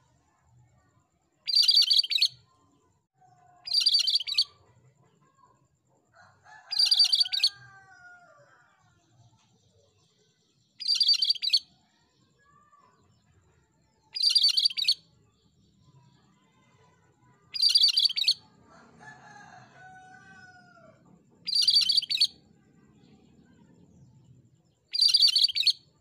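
Cucak Kerinci (cream-striped bulbul) calling: a short, loud, rasping high call repeated eight times, about every three to four seconds. Fainter, lower whistled notes come in between.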